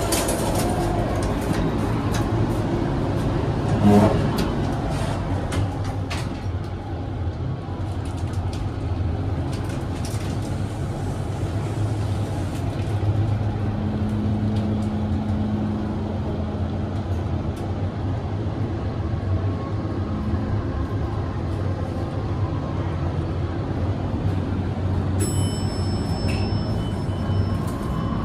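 Heights elevator car riding between floors: a steady low hum, a single knock about four seconds in, a held tone through the middle of the ride, and a short high electronic tone near the end.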